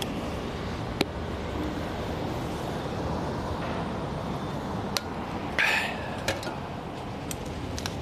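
Steady outdoor street background noise, with a few sharp clicks and a brief rasping sound a little past halfway.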